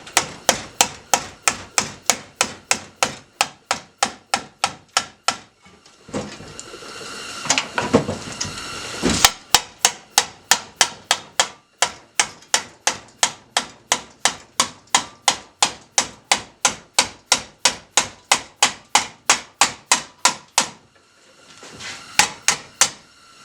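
Hammer blows on thick steel sheet being shaped, in long runs of about three or four strikes a second with brief pauses, the metal ringing after each blow.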